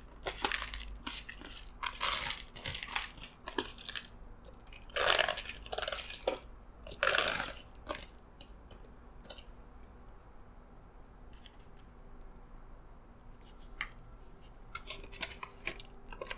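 Crispy fried crab-meat flakes poured and scraped with chopsticks out of a thin clear plastic clamshell box onto a salad, the plastic crackling and the flakes pattering down. It comes in rustling bursts for the first eight seconds, then quietens, with a few plastic clicks near the end as the box is closed.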